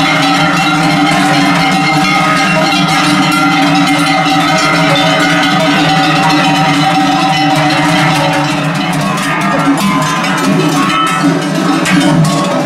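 Many large cowbells on a herd of cattle ringing together in a continuous, dense, loud jangle.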